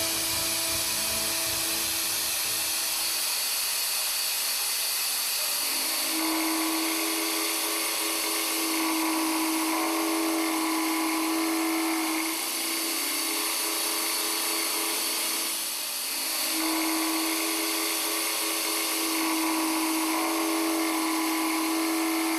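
Long-overhang end mill with a three-insert modular head finish-milling S50C steel dry at 1,500 rpm: a steady cutting tone sets in about six seconds in, fades for a few seconds around the middle, then returns.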